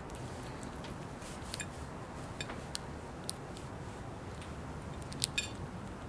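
A sparrow pecking at food scraps on a china plate: small, irregular clicks of its beak on the plate, the loudest two close together near the end, over a low steady room hum.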